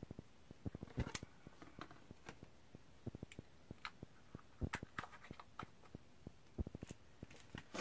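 Scattered light clicks and taps, irregular and several a second at times, from small plastic eyeshadow containers being handled.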